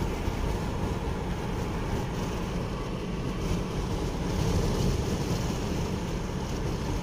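Steady road and engine noise inside a moving car's cabin, heaviest in the low end.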